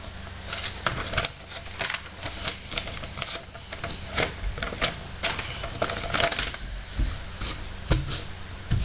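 A sheet of paper being folded and creased by hand for an origami ninja star: irregular crinkling and rustling with frequent sharp crackles, over a low steady hum.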